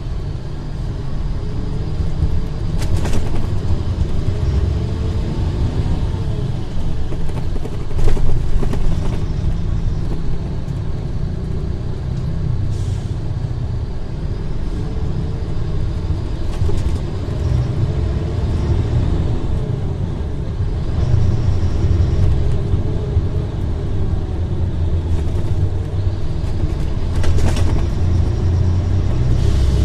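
Mercedes-Benz O500R bus's diesel engine running with a deep, steady rumble, its pitch rising and falling gently. A few short knocks or hisses cut through, the loudest about eight seconds in.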